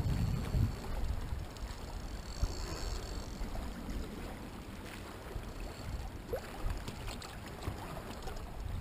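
Low, uneven rumble of wind and water around a small boat on open water, strongest at the start, with a few faint clicks a little past the middle.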